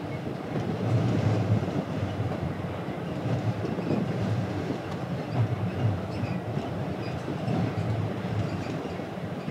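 Steady low rumble of a ferry under way, heard on its deck: engine and hull vibration with a faint hum, rising and falling a little in loudness.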